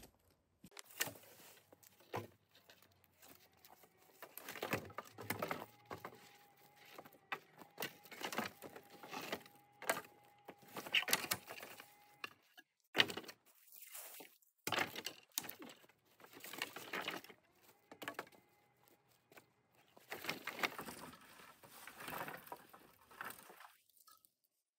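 Irregular rustling, cracking and knocks of dry branches and dead wood being handled, with footsteps.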